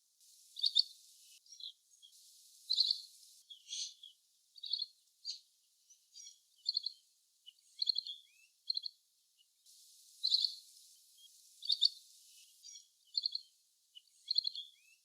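Asian green bee-eater (little green bee-eater) calling: short, thin, high trilled notes in brief phrases, repeated about once a second with small gaps.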